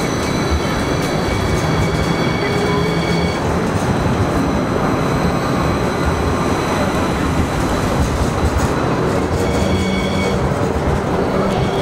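NJ Transit Hudson-Bergen Light Rail Kinki Sharyo light rail vehicle moving past at a platform, with a steady rumble of wheels and running gear. Thin high squealing tones sound for the first few seconds and again near the end.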